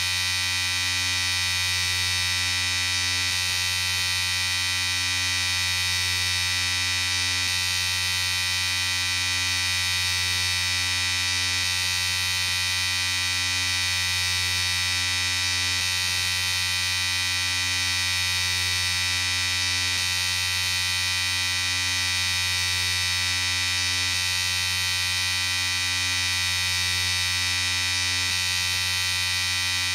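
Electric shaver running steadily, a continuous even motor buzz with no change in pitch or level.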